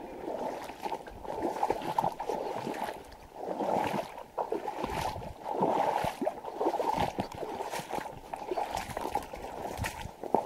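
A person walking through wet marsh: water sloshing and wet vegetation swishing with each step, in uneven surges every second or so.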